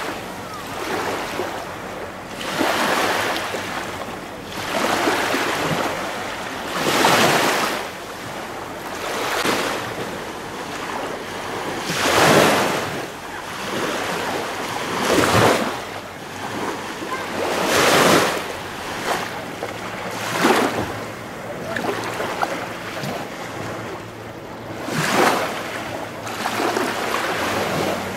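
Small waves washing ashore in repeated swells that rise and fade about every two to three seconds.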